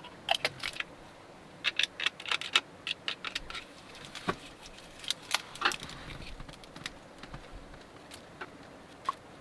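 Irregular light metallic clicks and clinks in quick clusters, from small tools and containers being handled while polyester filler is got ready.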